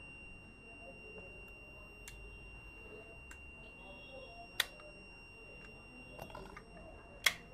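Conventional fire alarm system still in alarm, sounding a steady high-pitched tone, because a device has not cleared from the fire condition. A few sharp clicks of hands working the equipment come over it, the loudest about halfway through and near the end.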